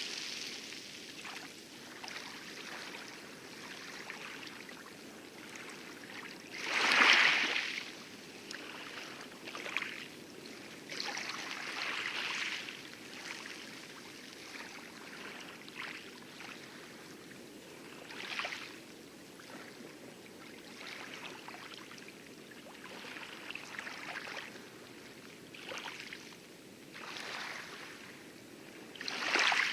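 Light waves lapping and splashing on coral, in irregular washes every few seconds with the biggest splash about seven seconds in, over a steady hiss of heavy surf breaking in the distance.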